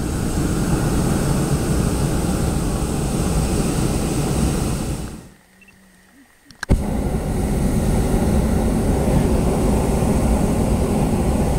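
Hot-air balloon's propane burner firing in two long blasts: the first cuts off about five seconds in, and the second starts with a sharp click about a second and a half later and runs on.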